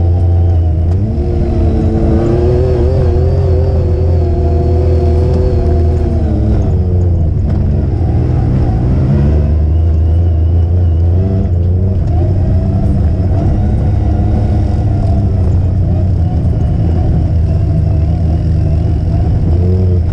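Off-road vehicle's engine heard from on board, running over a strong low rumble as it drives a rough dirt trail. Its revs climb in the first couple of seconds and hold. They drop off from about six to nine seconds in, then rise again and keep rising and falling with the throttle.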